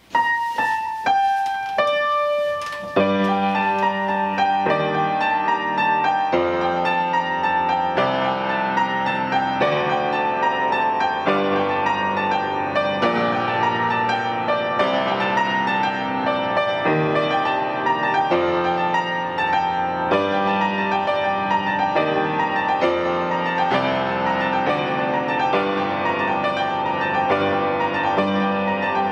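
Background piano music: a few single ringing notes at first, then from about three seconds in a steady flowing piano piece with chords.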